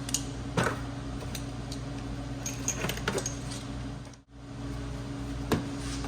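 Scattered clicks and clinks of metal tools and engine parts being handled during reassembly of the coil packs, over a steady low hum.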